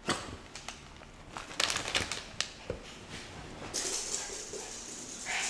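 Maltese dog jumping down from a couch and scurrying off: a run of sharp clicks and scuffles, then a steady hiss begins nearly four seconds in.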